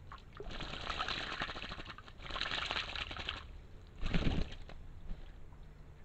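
Eurasian jay bathing in a shallow pool: two bursts of splashing and fluttering wings in the water, then a shorter, heavier flurry about four seconds in, over the faint trickle of the stream.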